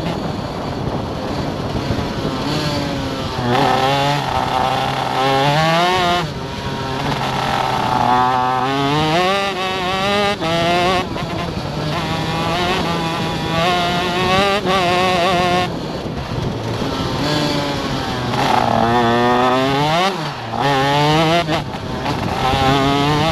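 Honda 125cc two-stroke shifter kart engine at racing speed, its pitch climbing repeatedly through the gears and dropping sharply several times on braking and downshifts.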